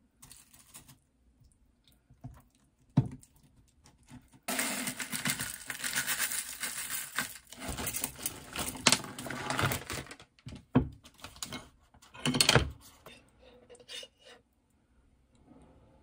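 Food-prep handling sounds: scattered clicks and knocks of a spoon and containers against a glass mug, with a longer stretch of dense rustling and rattling from about four to ten seconds in.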